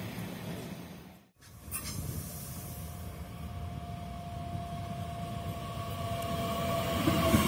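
An Intercity train fading as it pulls away; the sound cuts out briefly about a second in. Then a Bombardier Talent 2 S-Bahn electric multiple unit runs into the platform, its rumble growing louder with a steady whine.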